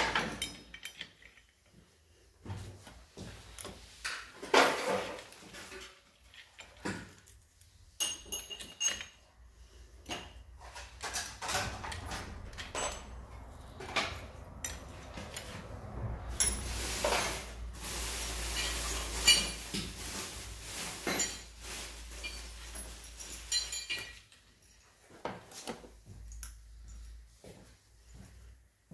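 Clutch friction plates and steel plates of a Mondial Drift 250 motorcycle engine being slid one after another onto the clutch basket: repeated light metallic clinks and clatter, some with a short ring.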